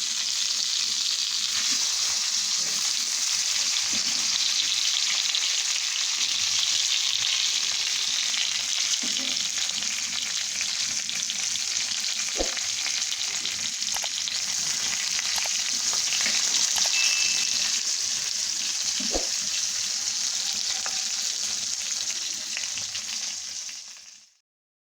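Food frying in hot oil in a pan: a steady sizzle with a few light clicks scattered through it, cutting off abruptly near the end.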